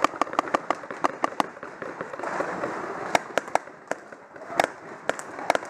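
Paintball markers firing: a rapid string of sharp pops in the first second and a half, then scattered shots in small groups.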